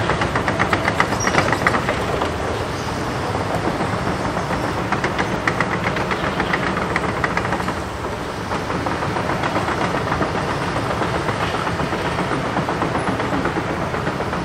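Takeuchi TB2150R compact excavator travelling on steel tracks, its diesel engine running under a rapid clicking and clanking of the track links.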